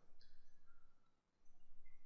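Faint room tone: a low hum and background noise, with a brief dip to silence about a second in.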